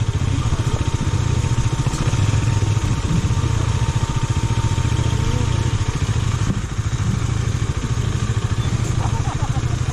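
KTM Duke 250 single-cylinder engine running steadily while the motorcycle is ridden down a rough off-road hill track.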